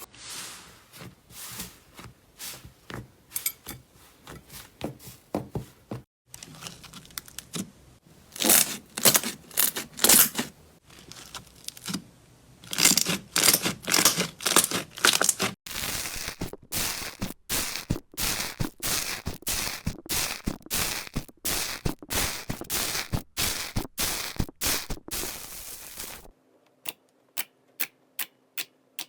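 Slime being pressed, poked and stretched, giving rapid crackling clicks and pops in several short segments with abrupt cuts between them.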